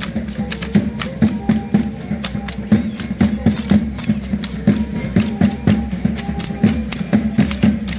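Matachines dance music: a quick, even rhythm of sharp clicks and beats, several a second, over a steady low drum-like tone.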